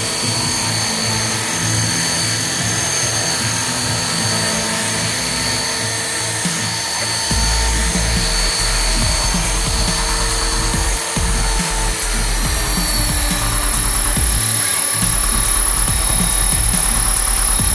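Titan T-Rex 450 electric RC helicopter hovering: a steady high-pitched whine from the motor and drivetrain over the rotor buzz. The whine dips slightly in pitch about twelve seconds in and climbs again near the end, and a low buffeting rumble joins about seven seconds in.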